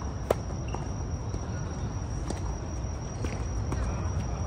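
A tennis ball struck sharply once, about a third of a second in, followed by a few fainter ball hits or bounces. Under them run a steady high-pitched whine and a low rumble.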